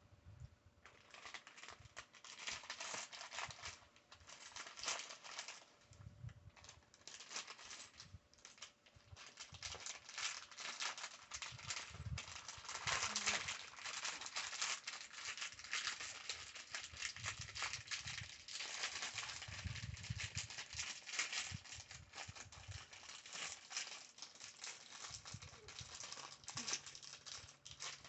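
Clear plastic bag of LEGO pieces crinkling almost continuously as it is handled and turned over, starting about a second in, with the small bricks shifting inside.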